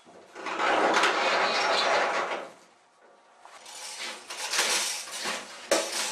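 A large sliding sheet-metal barn door rolling open along its track for about two seconds, then a run of metallic clanks and rattles as things are handled.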